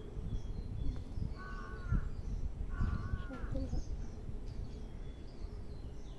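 Birds calling: two short pitched calls about a second apart near the middle, with faint high chirps from other birds, over a steady low rustling noise.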